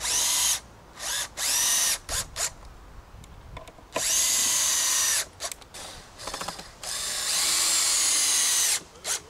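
Cordless drill in about six short runs, pre-drilling and driving screws into pressure-treated pine framing. Each run spins up quickly to a steady whine, and the longest, about two seconds, comes near the end.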